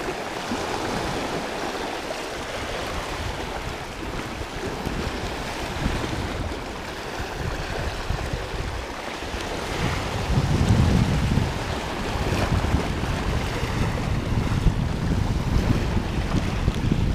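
Small sea waves washing and splashing over low rocks at the water's edge, with wind buffeting the microphone in low gusts that grow stronger about ten seconds in.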